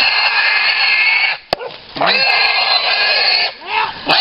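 Wild hog squealing loudly and repeatedly, three long squeals of about a second and a half each, while a catch dog holds it.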